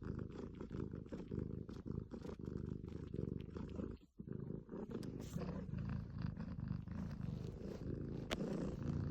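Domestic cat purring: a continuous low, finely pulsing rumble that breaks off briefly about four seconds in, then resumes. A single sharp click sounds near the end.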